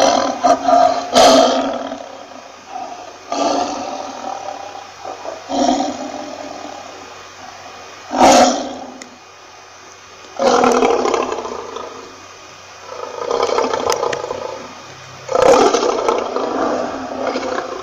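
Lion roaring over and over: loud, rough calls, one every two or three seconds, some short and some drawn out over a second or two.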